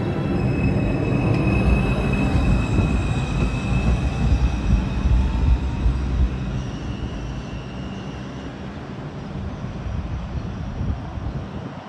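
R142 subway train pulling out of the station and moving away: a heavy rumble of wheels on the rails with a thin high whine over it, fading from about six seconds in.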